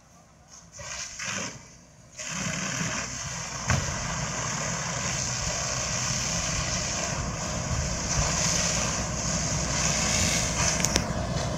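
A heavy vehicle's engine running steadily, with a strong hiss over it, comes in about two seconds in after a quieter start. A sharp click is heard about four seconds in.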